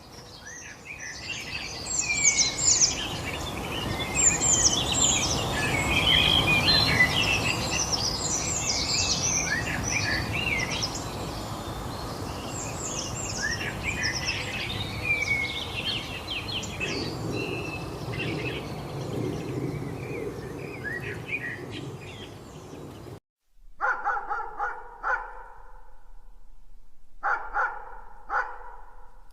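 Many small birds chirping and singing together over a steady outdoor hiss. About 23 seconds in this cuts off, and a dog barks in short bursts a few times.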